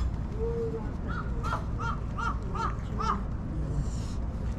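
A crow cawing six times in quick, even succession over steady low background noise.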